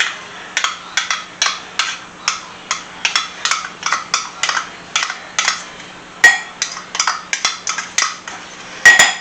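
A spoon knocking and scraping against a dish in quick repeated strokes, about three a second, while sauce is worked into a casserole mix, with a sharper ringing clink near the end.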